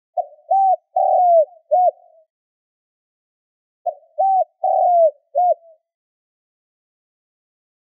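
Spotted dove cooing: two phrases about three and a half seconds apart. Each phrase has four notes, and the third note is the longest, falling in pitch.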